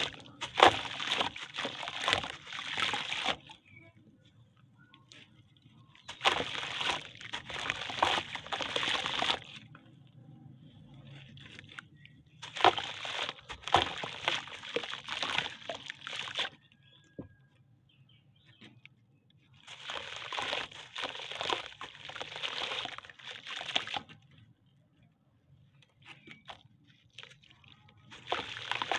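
A sun-dried lump of red dirt, made of red brick soil, sand and water, being crushed and crumbled by hand in a tub of water. Gritty crackling mixes with water sloshing and crumbs splashing in. It comes in bouts of three to four seconds, with quiet pauses between.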